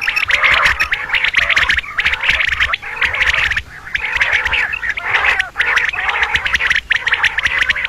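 Female common quail calls: a dense, crackling run of rapid clicky notes in bouts about a second long, broken by short pauses twice.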